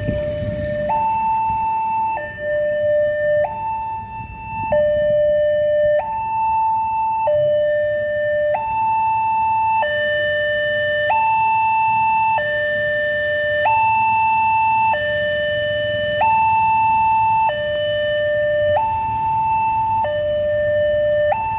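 Railroad level-crossing warning sounder from the horn speakers on the crossbuck: an electronic two-tone alarm alternating between a lower and a higher tone, each held about a second and a quarter, warning that a train is approaching. Road traffic idles faintly underneath.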